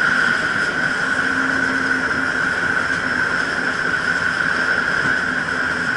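Jet ski engine running steadily while under way at a constant speed, a continuous whine held at one pitch over a hiss of water and wind.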